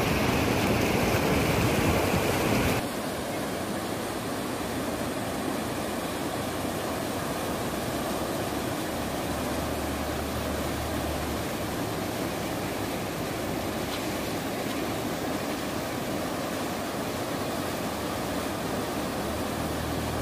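A swollen, muddy river in flood, rushing steadily past with churning rapids. It is louder for the first three seconds, then drops suddenly to a lower, even level.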